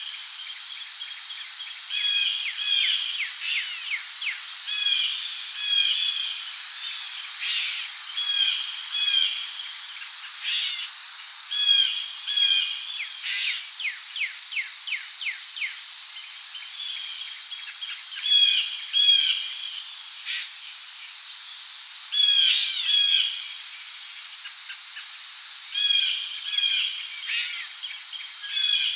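Rainforest ambience: a steady, high-pitched cricket drone under birds calling over and over in short repeated phrases every couple of seconds, with a few runs of quick falling notes.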